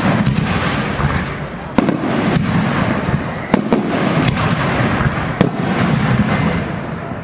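Aerial firework shells bursting in quick succession: repeated sharp bangs over a steady din from the display.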